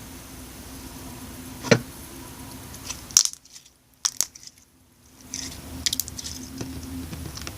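Pink cotton candy slime being stretched and squished by hand, giving sharp pops and crackles: one about two seconds in, a cluster around the middle, and a run of small crackles later on, with a brief hush between them.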